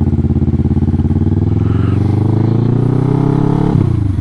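Kawasaki ER-6n's 649 cc parallel-twin engine accelerating, its pitch rising steadily. Near the end it drops briefly, as on an upshift, then climbs again.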